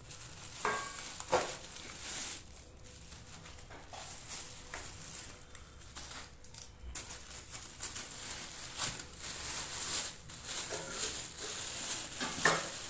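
Takeaway food packaging rustling and crinkling as a delivery is unpacked, with scattered light clicks and taps of containers being handled.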